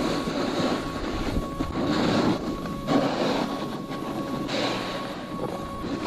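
Snowboard sliding and scraping over groomed snow, a rough rushing noise that swells and eases with the turns, mixed with wind buffeting the camera's microphone.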